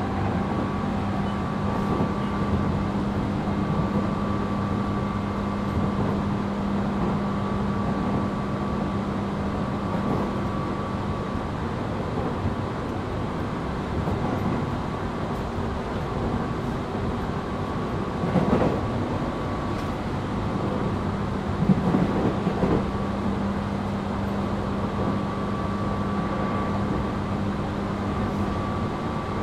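Tobu 8000 series electric train running between stations, heard inside motor car MoHa 8270: a steady hum over continuous wheel-and-rail noise, with two short louder clattering passages about 18 and 22 seconds in.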